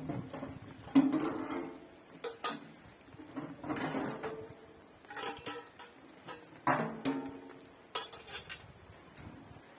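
Metal cookware clinking and knocking: a string of sharp knocks about a second or so apart, each with a short ringing.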